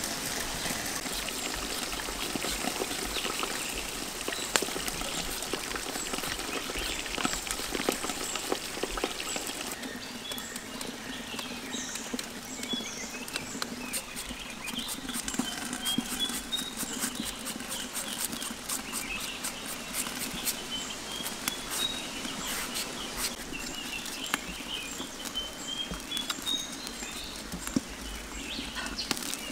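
Knife blade shredding a peeled mango, a quick run of short scrapes and clicks. A bird chirps repeatedly in the background through the middle part.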